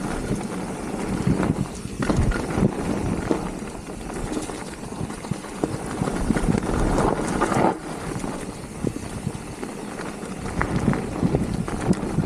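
Mountain bike rolling fast down a dirt trail: tyres crunching over packed dirt and dry leaves, with frequent knocks and rattles as the bike hits bumps, over a steady rush of wind on the microphone.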